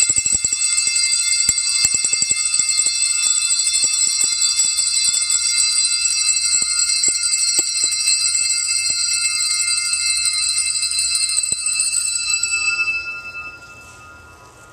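A group of small handbells rung together continuously, several high pitches held at once over a fast, uneven patter of strikes. The ringing stops about a second before the end and dies away quickly.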